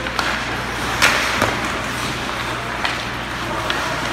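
Ice hockey play in a rink: a few sharp knocks of sticks and puck, the loudest about a second in, over a steady background hum.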